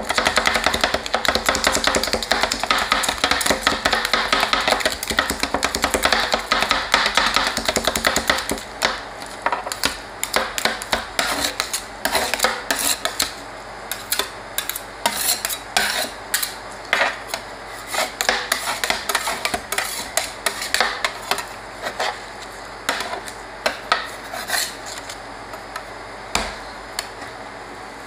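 Metal spatula blades chopping and mashing ice cream mixture on the frozen steel pan of an ice cream roll machine: a rapid run of clicking taps for about the first eight seconds, then slower, sparser taps that get quieter toward the end, when the spatulas begin scraping the mix flat.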